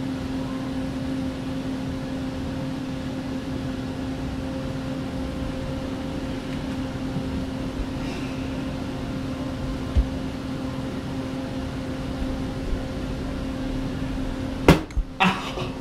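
Steady hum of a ventilation fan or air-conditioning unit with a constant low tone. A low bump comes about ten seconds in, and a sharp, loud clack about a second before the end.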